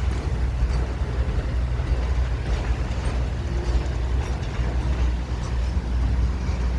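A train running by with a steady low rumble and a few faint clicks.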